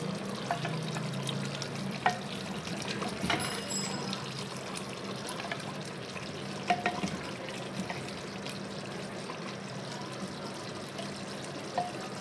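Wooden spoon knocking and scraping against clay handi pots while wet curry is ladled from one pot into the other: a handful of sharp clicks and a soft slopping over a steady hiss and low hum.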